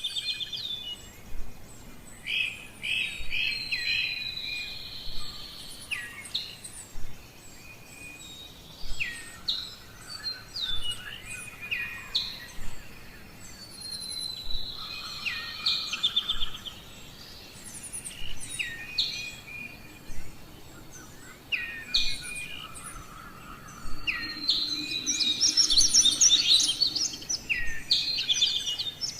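Birds singing and calling: many short chirps and down-slurred whistles, with a dense run of trills about 25 seconds in.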